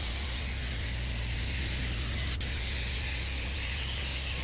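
Paint spray gun spraying epoxy primer onto a truck frame: a steady hiss over a steady low hum.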